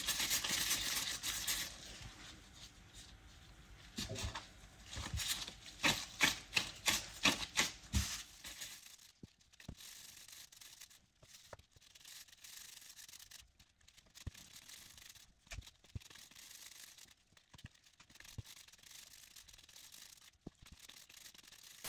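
Hands rolling soft cottage-cheese dough into small balls between floured palms: a soft rubbing at first, then a run of light rubs and pats from about four to eight seconds in, then only faint ticks.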